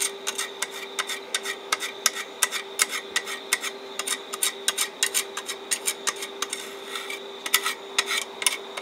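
A 1.6 mm stick-welding rod scratched and tapped against a thin steel bracket in quick, irregular clicks and scrapes, trying to strike an arc that does not catch. A steady hum runs underneath.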